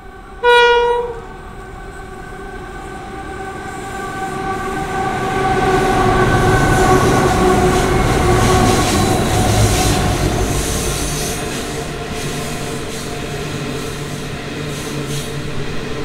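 Diesel locomotive horn gives one short blast about half a second in. The locomotives of a loaded coal train then pass close by, their engine noise swelling with tones that slowly fall in pitch. It eases into the steady rumble and clatter of the coal wagons rolling past.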